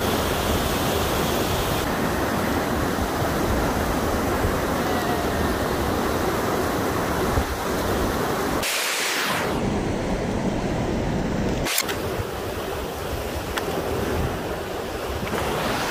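Steady rushing of a fast-flowing mountain stream, broken by a sudden change a little before nine seconds in and a sharp click near twelve seconds.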